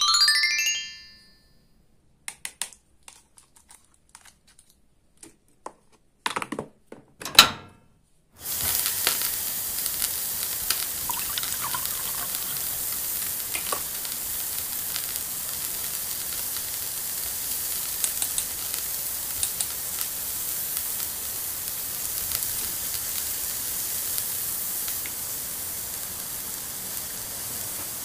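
A short rising chime, then a few light plastic clicks and taps. About eight seconds in, a steady frying sizzle with small crackles starts and carries on while toy noodles are cooked in a toy pan on a plastic toy stove.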